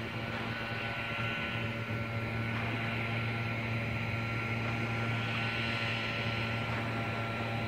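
A steady engine drone with a constant low hum and a thin, unchanging high whine over it.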